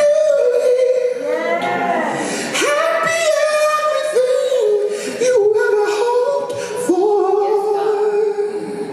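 A solo singer's voice holding long, high notes with vibrato, with a quick rising-and-falling vocal run about two seconds in.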